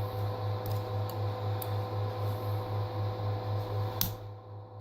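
Steady low hum from the idle CTC 3D printer's fans and power supply, wavering about four times a second, with a few faint clicks and a sharper click about four seconds in as the printed part is handled.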